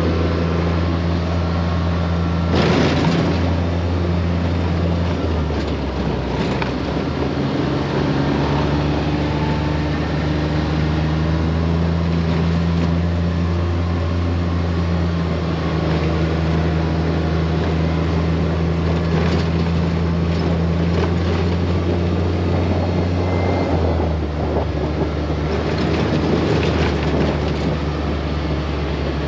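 Side-by-side UTV engine running steadily while driving on a dirt road, heard from inside the cab, its pitch stepping down about five seconds in and again near the end. Short knocks and rattles from bumps in the road, the loudest a few seconds in.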